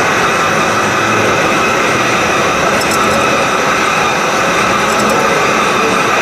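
Serrated-knife-blade grinding machine running its automatic cycle: the grinding wheel is working the teeth of a serrated blade one after another, a steady machine hum and grinding hiss with a few faint high ticks.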